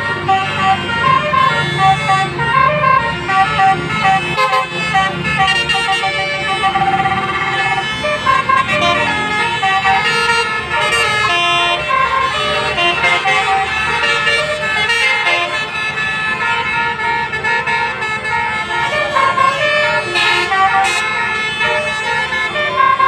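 Basuri multi-tone 'telolet' bus horn playing a running melody of short notes that step up and down in pitch, several a second, with no break, over a low rumble in the first few seconds.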